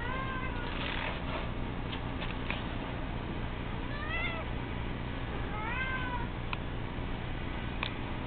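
Tabby kitten meowing three times: a short call at the start, then two more about four and six seconds in, each rising and falling in pitch.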